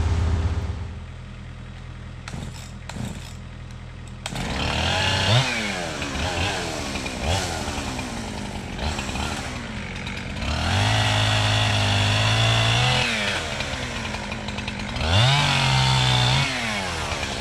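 Two-stroke gas chainsaw running low for about four seconds, then revved up and down several times. It is held at full throttle for a couple of seconds near the middle and again near the end, typical of cutting into wood.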